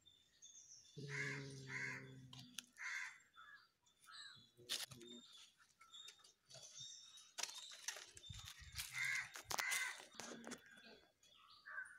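Crows cawing several times in short harsh calls, with scattered clicks and rustles.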